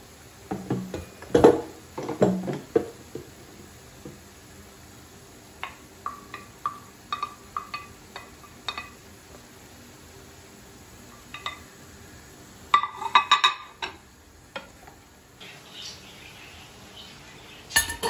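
Cookware clattering: a pan lid knocks and clinks as it is handled, then comes a run of light ringing taps. About two-thirds through there is a quick cluster of clatter as chopped tomatoes are tipped from a tray into the frying pan.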